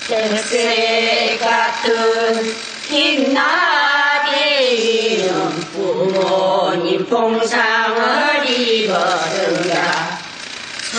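A single voice singing a Korean folk song (minyo) unaccompanied, in a chant-like style with long held notes that bend and slide in pitch, breaking briefly for breath.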